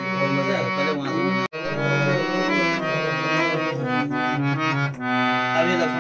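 Hand-pumped harmonium playing sustained chords and a melody, with a brief break about one and a half seconds in.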